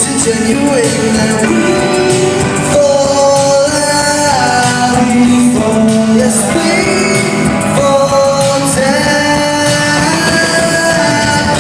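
Male pop vocal group singing live over a full band, with long held and sliding notes in harmony, at a concert soundcheck in a large hall.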